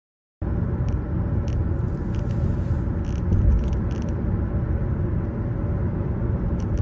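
Steady low rumble of a car driving along a highway, road and engine noise, starting abruptly about half a second in.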